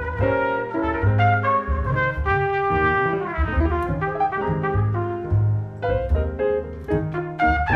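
Jazz trumpet playing a melody line, accompanied by piano and double bass.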